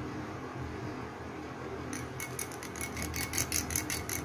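A spoon clicking rapidly against a cut-glass bowl as a thick paste is stirred, starting about halfway through, over a low steady room hum.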